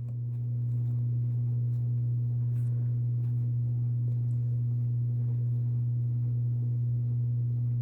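A steady low hum with a fainter tone an octave above it, unchanging throughout, with a few faint soft rustles.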